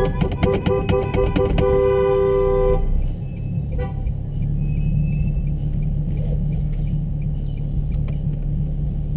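Two-tone car horn honking in a quick series of short blasts, then held, cutting off about three seconds in. The steady low rumble of car engines runs underneath and continues after the horn stops.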